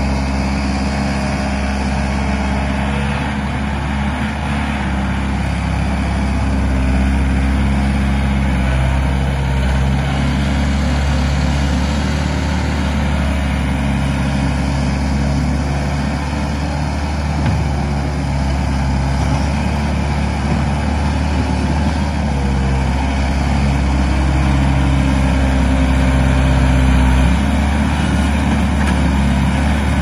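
Case 1845C skid steer's four-cylinder Cummins 4BT diesel running steadily as the loader drives and carries dirt in its bucket, getting slightly louder in the last few seconds.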